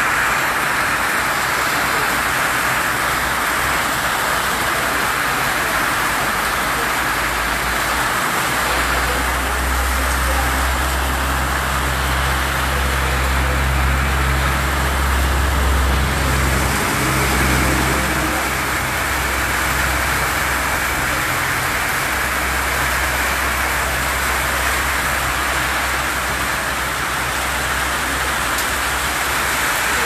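Steady rain drumming on a corrugated metal roof: a constant, even hiss. A low hum runs underneath from about eight seconds in to about twenty-two seconds in.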